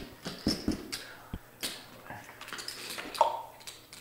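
Poker chips and cards being handled on a felt poker table: scattered sharp clicks and taps, with one louder clack about three seconds in.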